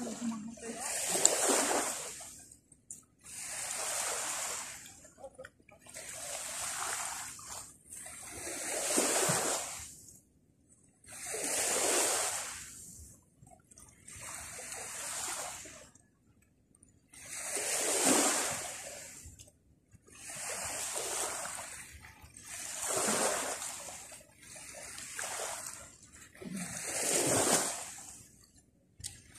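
Small sea waves washing onto the shore, one surge of rushing water about every two to three seconds, each swelling and falling away with short quiet gaps between.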